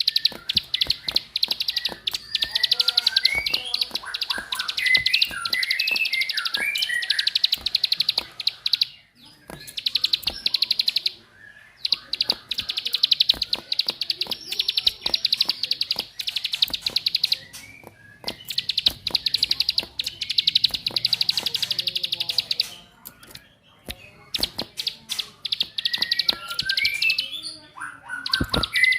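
Bar-winged prinia (ciblek) giving its rapid buzzing 'ngebren' trill, a dense fast ticking held for several seconds at a time with short breaks, mixed with lower twittering chirps.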